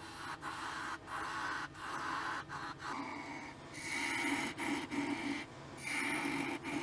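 Wood lathe turning a wooden blank while a hand-held turning tool cuts into it. The cutting comes as a string of short scraping passes with brief breaks between them, louder in the second half.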